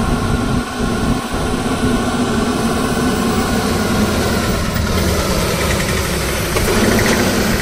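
Diesel engine of a loaded Ashok Leyland 14-wheel truck labouring steadily as it climbs past, the drone swelling slightly as it comes closest near the end.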